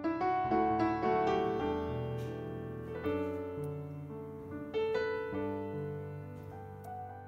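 Background piano music: sustained notes and chords struck in slow phrases, each left to ring and fade.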